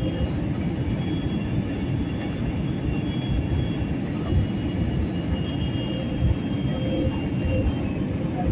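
Airliner cabin noise heard from inside the cabin: a steady low rumble of engines and airflow with faint thin high tones above it.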